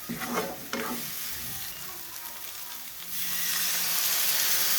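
Food frying in a pan with some stirring. About three seconds in, a loud, steady sizzle suddenly starts.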